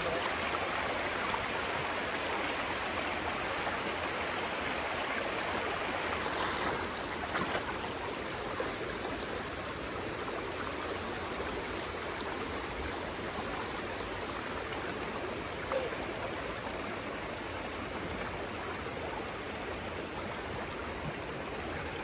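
Steady rush of flowing river water.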